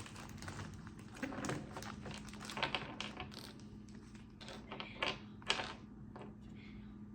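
Irregular light clicks and rustling of small parts being handled as someone rummages through a stove service kit, with a few sharper taps near the middle and end.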